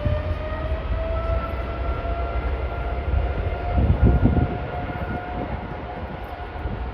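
Jet airliner engines running with a steady rumble and a faint whine that rises slightly and then holds. A brief burst of low buffeting about four seconds in.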